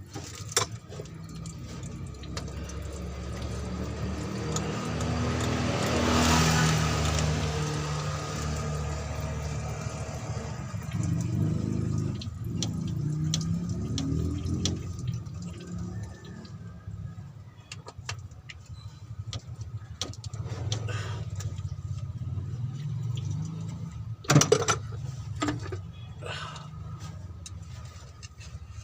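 A vehicle engine runs nearby as a steady low hum, swelling and fading about six seconds in as if passing, with scattered metallic clicks of hand tools while the water pump's last fastener is worked loose. One sharp metal knock stands out about 24 seconds in.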